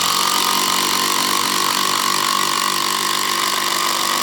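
DeWalt DCF787 20-volt impact driver running under load, hammering steadily without a break as it drives a 4-inch screw into hard ash.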